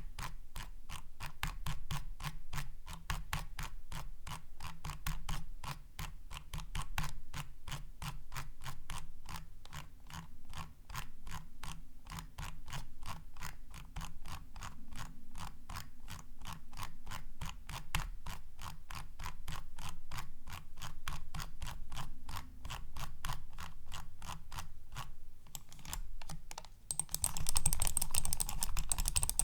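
Logitech B100 computer mouse clicking over and over in a steady run of sharp, evenly spaced clicks, about three or four a second. About 26 seconds in, the clicks give way to a louder scraping noise.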